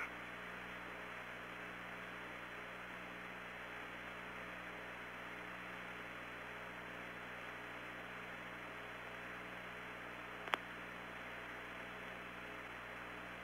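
Steady hiss and low hum of the Apollo air-to-ground radio link with no one transmitting. There is one brief click about ten and a half seconds in.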